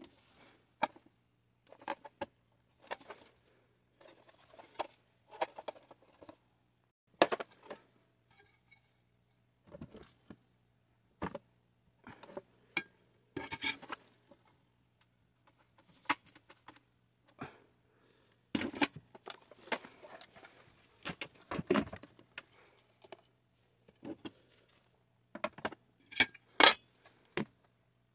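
Scattered metal clinks and knocks at irregular intervals as a sheet-metal portable butane stove is handled and moved about, with a few sharper clanks.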